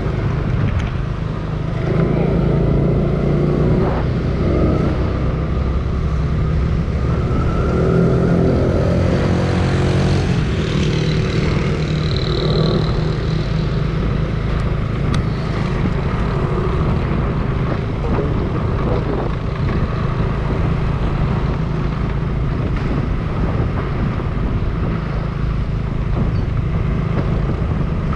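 Steady engine and road noise from a car driving through city streets, with a faint voice about eight to eleven seconds in.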